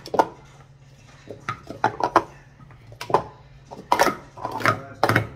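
Plastic sport-stacking cups (Speed Stacks) being stacked up and down at speed: quick runs of clacks as the cups knock against each other and the mat, coming in clusters with short gaps between.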